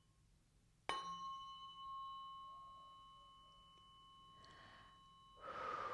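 A tuning fork struck once about a second in, then ringing with a few steady high tones that slowly fade. Near the end a soft rushing swish rises over the fading tone.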